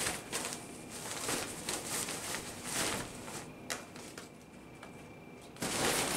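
Collapsible fabric cat tunnel rustling in irregular bursts as a cat scrambles over and into it, shoving the tubes about. The rustling quietens a little after about four seconds and picks up again near the end.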